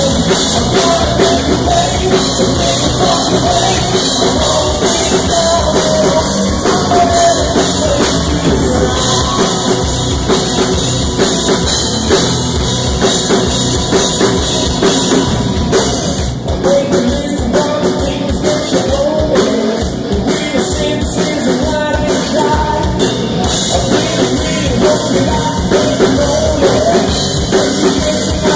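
Live rock band playing loudly: a male singer over electric guitar and a driving drum kit.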